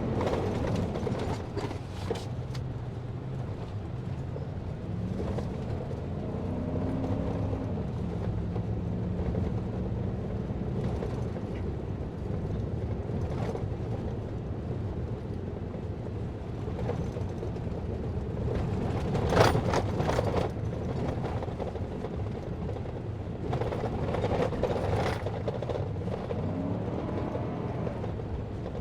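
A vehicle's engine running as it drives, its pitch rising and falling a few times, with creaks, rattles and knocks from the body jolting, the sharpest knock a little over two-thirds through.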